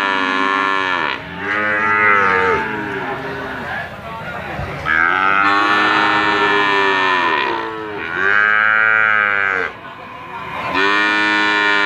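Bali cattle mooing repeatedly: four or five long, loud moos, each bending down in pitch at its end, with short pauses between them.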